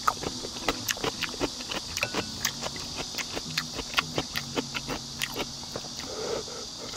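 A person eating close to the microphone: chewing with frequent short, crisp clicks, several a second, over a steady high hiss.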